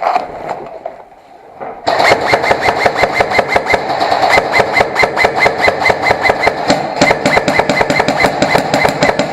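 Airsoft electric gun firing a long full-auto burst: a rapid, even stream of shots over the gearbox motor's whir. It starts about two seconds in and runs for about seven and a half seconds.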